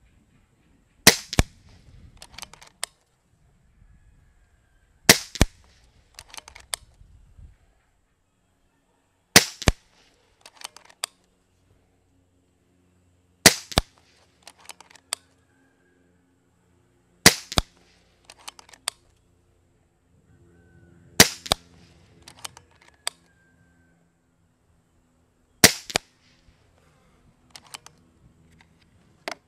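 Kral Puncher Breaker .22 PCP bullpup air rifle firing seven shots, about four seconds apart, each a sharp crack. Each shot is followed a third of a second later by a second click, then a few quieter clicks as the action is cycled for the next pellet.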